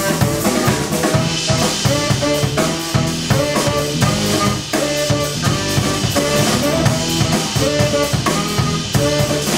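A drum kit played busily and loudly, with dense cymbal and snare strikes, rimshots and bass drum, over electric bass notes in a live band.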